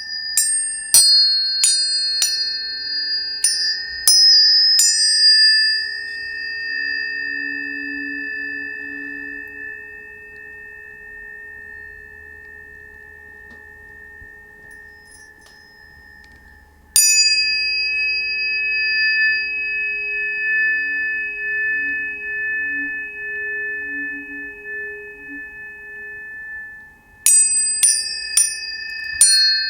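Tuning forks struck again and again, each strike leaving a long, steady ringing tone that overlaps the others. There are several quick strikes in the first few seconds, one more about halfway through, and another quick flurry near the end.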